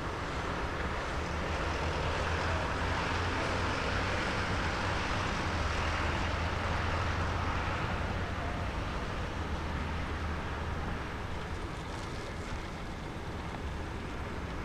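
Jet engines of an Airbus A330 airliner at takeoff power, a broad roar over a deep rumble. It grows louder over the first couple of seconds, holds for several seconds, then eases off as the jet moves away.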